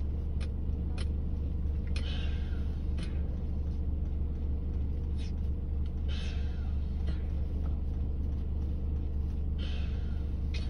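Steady low rumble under light rain, with scattered clicks and three short scratchy rustles about two, six and ten seconds in as the tent fabric is handled.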